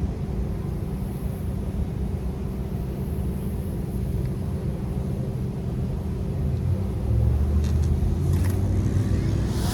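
An engine running steadily, a low rumble that grows louder about seven seconds in.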